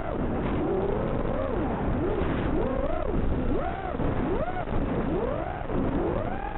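FPV racing quadcopter's 2206 2300 kV brushless motors on 4S, spinning 5045 bullnose two-blade props, whining and swooping up and down in pitch about once a second as the throttle is punched and chopped through turns.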